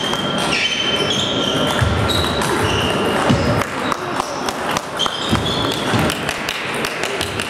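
Table tennis rallies: celluloid balls clicking on tables and bats, with ticks from several tables going at once. Short high squeaks and a few low thuds come from players' footwork.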